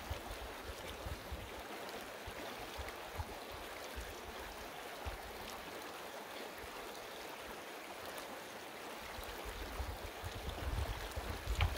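Shallow, clear stream running over rocks, with light splashes as water is scooped up by hand and poured over a head to rinse out shampoo. Low rumbling rises near the end.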